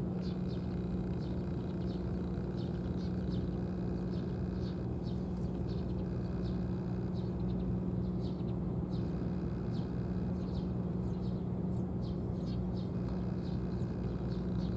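A steady low machine hum holding one pitch, with short high bird chirps scattered over it.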